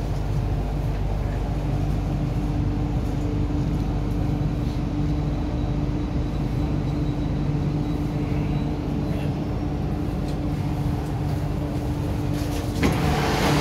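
Inside an MTR Q-Train car stopping at a platform: a steady hum of the train's running equipment with a held low tone. Near the end a sudden louder rush of noise comes in as the doors open.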